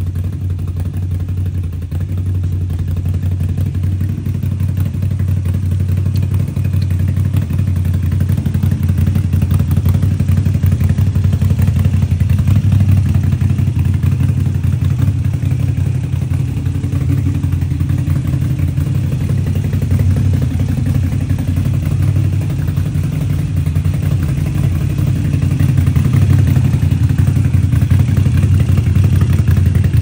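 Moto Guzzi V7 Stone's air-cooled transverse V-twin idling steadily through an aftermarket exhaust.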